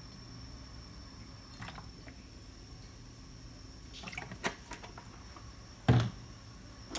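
Cooking oil poured from a plastic bottle into a steel wok, faint over a steady hum. A few light knocks follow, with one louder thump about six seconds in.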